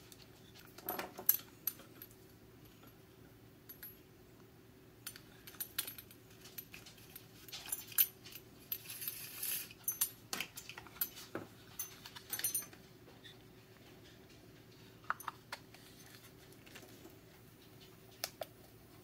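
Scattered clicks, taps and light rattles of a Garmin T5 GPS dog collar's plastic housing being fitted together and its strap and metal buckle being handled, with a short rustle about nine seconds in, over a faint steady hum.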